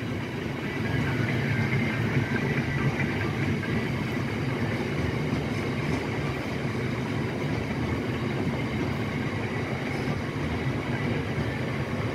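Loaded aggregate hopper wagons of a freight train rolling past, a steady rumble of wagon wheels on the rails.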